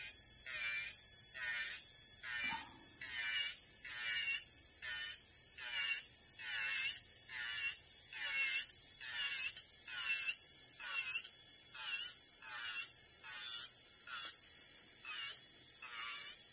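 Electric nail drill running with a steady high whine as its soak-off bit grinds gel polish off a fingernail. The grinding comes in repeated passes, about two a second.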